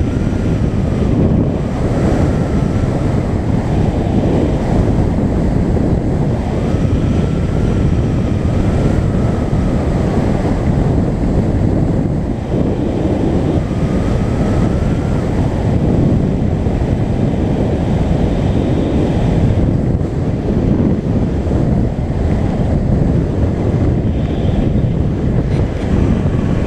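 Steady, loud wind rush buffeting an action camera's microphone while skiing fast down a groomed slope. A faint whine rises and falls now and then.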